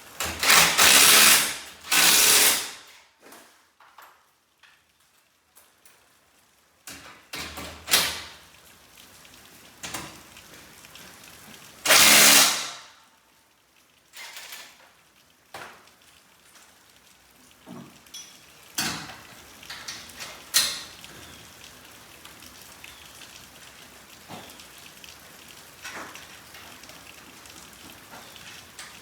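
Garage door installation work: a few short, loud bursts that sound like a power drill or driver, separated by scattered knocks and clicks of hardware being handled.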